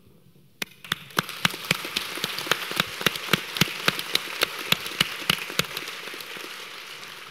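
Audience applauding: many hands clapping, starting after a brief hush about half a second in and thinning out near the end.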